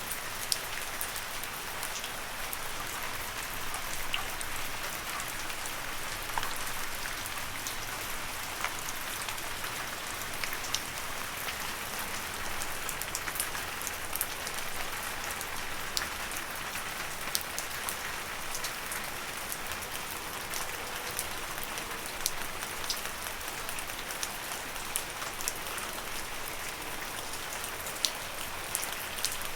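Steady rain falling on leaves: an even hiss with scattered, sharper individual drop ticks.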